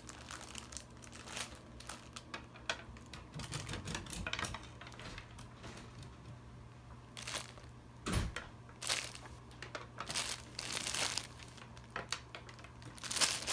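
Clear plastic treat wrapper crinkled in the hand in irregular bursts. There is one dull thump about eight seconds in.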